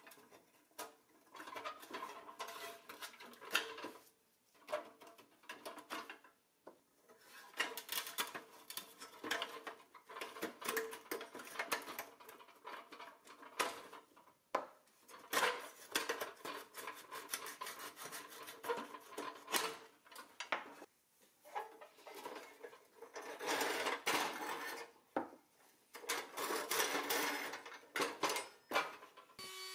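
Rusted pressed-steel Tonka toy crane handled on a wooden bench: its wheels roll and its loose metal parts clink, rattle and scrape in irregular bursts with short pauses.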